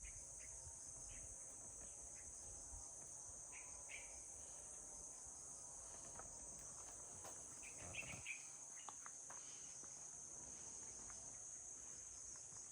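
Faint, steady high-pitched insect chorus, crickets trilling without a break, with a few short faint chirps over it.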